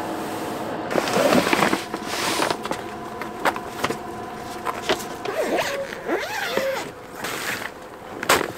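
Rustling and a zipper as a camping gear bag is handled and opened, with short ticks of buckles or fittings. A small dog whimpers briefly in the middle.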